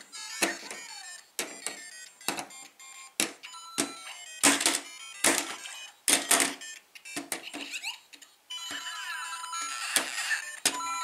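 Lego Super Mario interactive figure playing electronic game sound effects and short bleeping tunes from its built-in speaker, with plastic clacks about once a second as it is hopped onto the brick tiles. Some effects slide down or up in pitch. From about three-quarters of the way in, a steadier electronic tune with rising and falling bleeps plays.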